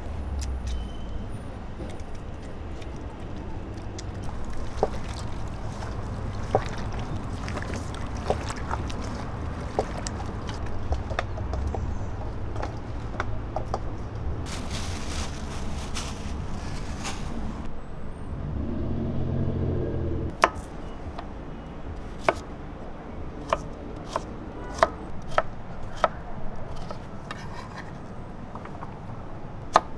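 Chef's knife chopping on an end-grain wooden cutting board: sharp single knocks at uneven spacing through the last third. Before that, scattered small clicks of food handling over a low background rumble, with a few seconds of hiss about halfway through.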